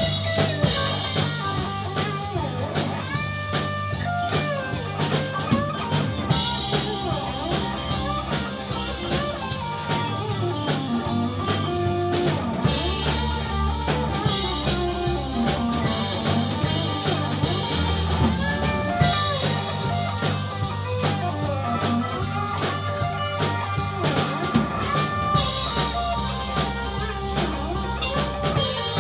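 Live blues band playing an instrumental passage: electric guitars over bass guitar and drum kit, with a lead line of bending notes.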